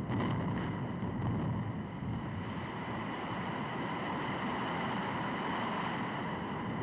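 A reinforced-concrete high-rise hotel collapsing in a controlled explosive demolition: two sharp cracks right at the start, then a steady, deep rumbling roar as the building comes down.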